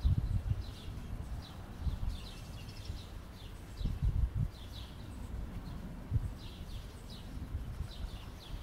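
Small birds chirping, short falling chirps repeated every second or so, over an uneven low rumble.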